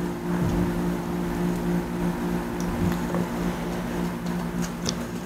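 Steady low mechanical hum holding several even tones, with a few faint clicks of small plastic toy parts being handled near the end.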